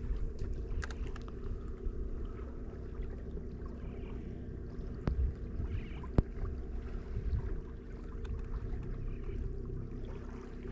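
Water lapping against a small boat's hull, over a steady low hum. Two sharp clicks come about halfway through.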